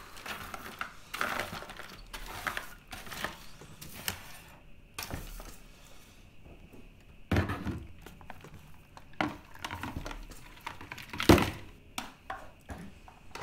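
Workbench handling clatter: irregular clicks, knocks and rattles of small hard objects, tools and clipped wire offcuts moved about and rattled in a plastic cup, with the sharpest knock about eleven seconds in.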